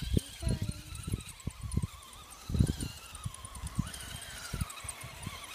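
Axial SCX10 Deadbolt RC crawler's electric motor and gears whining, the pitch wavering up and down as the throttle is worked, over irregular low thumps.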